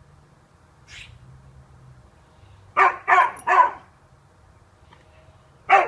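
Siberian Husky barking: three quick barks in a row about three seconds in, then another bark starting near the end.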